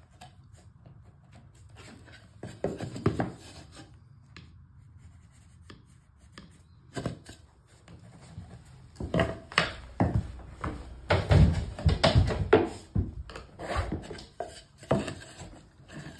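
Laminate floorboards being handled and shifted by hand over underlay: scattered light scrapes and taps, then a dense run of sharp wooden knocks in the second half as the boards are set in place.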